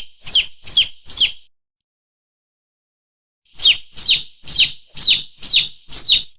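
Hunting lure call for mongoose and monitor lizard: a loud, high, bird-like squeak that falls sharply in pitch, repeated about twice a second. Three squeaks, a pause of about two seconds, then six more.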